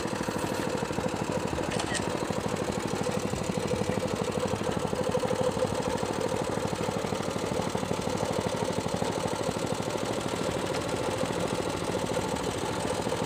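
Small engine of a bamboo train (norry) idling steadily at an even speed while the cart stands still on the rails.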